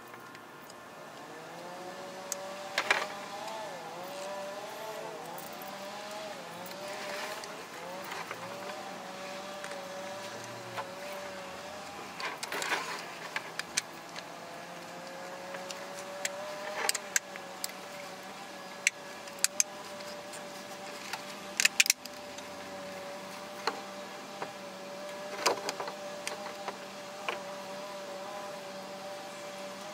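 Sharp clicks and knocks of hard plastic chest-mount parts being handled and fitted together, a few seconds apart, over a steady humming tone that wavers in pitch through the first dozen seconds and then holds.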